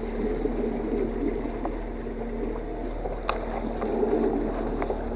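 Boat engine running steadily under way, a constant low drone with wind and water noise over it. A sharp click sounds about three seconds in.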